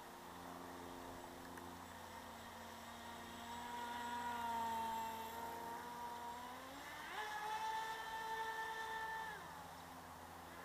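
Radio-controlled model boat's motor whining. It grows louder a few seconds in, then its pitch climbs sharply as it throttles up about seven seconds in, holds high for a couple of seconds, and drops back as it eases off.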